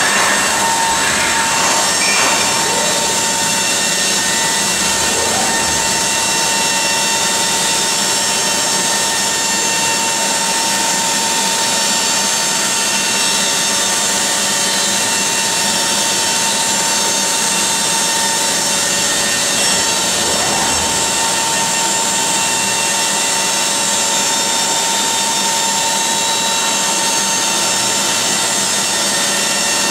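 Robotic grinding head running along the weld seams of a metal cabinet: a steady, high-pitched grinding hiss with a constant whine.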